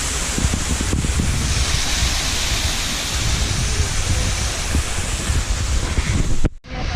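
Steady rushing of a spring-fed waterfall, with wind buffeting the microphone. It cuts off abruptly near the end.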